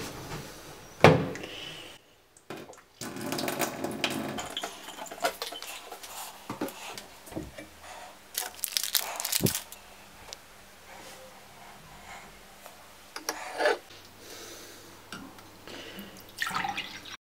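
Kitchen sounds: water running into a stainless steel sink amid scattered knocks and clinks of crockery. Near the end, water is poured from a plastic bottle into a glass, and then the sound cuts off abruptly.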